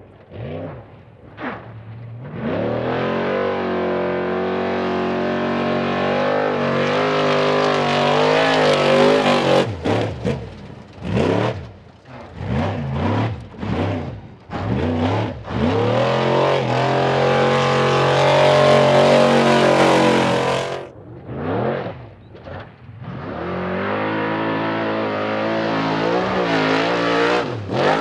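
Off-road race trucks' engines revving hard through a dirt turn, one truck after another. There are long full-throttle pulls, a stretch of quick on-off throttle blips partway through, and the engine note rising again near the end.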